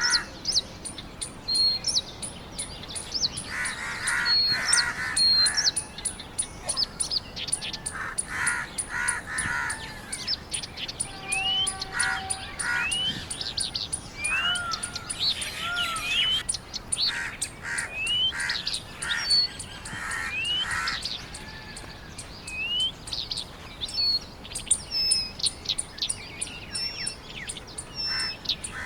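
Several birds calling at once: runs of harsh, repeated calls, rising whistled notes and high chirps, over a steady high ticking.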